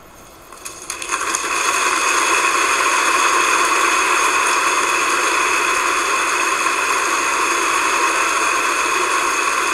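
A hush, then a few scattered claps about half a second in that swell within a second into steady applause from a large concert audience, greeting the end of the performance.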